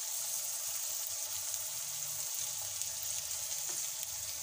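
Desi ghee sizzling steadily in a kadhai over a low-to-medium gas flame, frying cumin, cashews, raisins and boiled peas.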